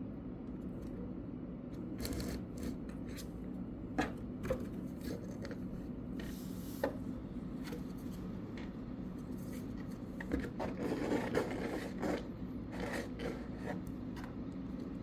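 Cat scratching and pawing at a cardboard box: irregular scrapes and taps, busiest about ten to twelve seconds in, over a steady low hum.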